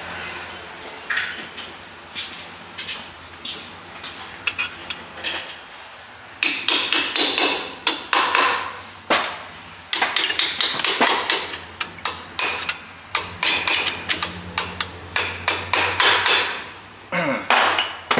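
Brass hammer striking steel as the new carrier, a tight fit with its shims, is tapped home in a Jeep JK's Dana 30 front axle housing. A few scattered taps come first, then quick runs of strikes from about six seconds in.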